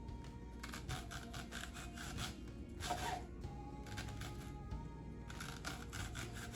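Background music with a simple melody, over a knife slicing onion on a cutting board in quick, repeated cuts.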